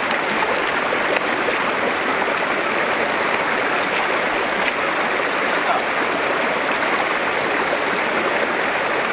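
A shallow mountain river rushing over rocks in a riffle: a steady, even sound of running water.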